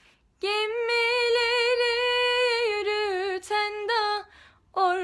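A woman's voice singing a Black Sea (Karadeniz) Turkish folk song unaccompanied: one long held note with vibrato starting about half a second in, then shorter ornamented notes, a brief breath pause, and the singing resumes near the end.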